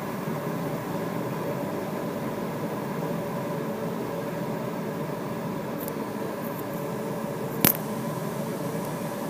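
Steady rush of air past the canopy in the cockpit of a Duo Discus two-seat glider gliding in to land, with one sharp click near the end.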